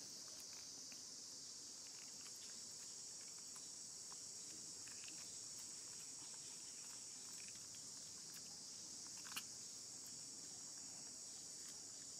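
Steady, faint, high-pitched drone of an insect chorus, with faint scattered clicks and rustles and one sharper click about nine seconds in.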